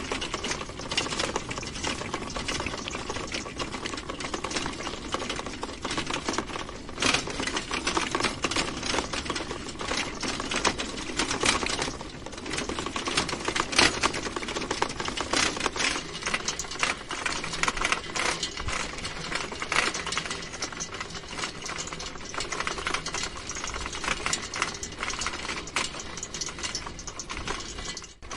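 Bicycle rattling and clattering without a break during a shaky ride over rough ground, a dense run of rapid small knocks from the frame and fittings.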